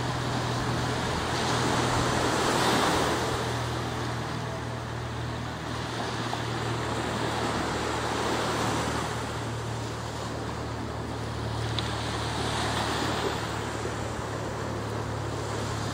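Surf breaking in the shallows of a beach, a rushing wash that swells and fades several times as each wave comes in.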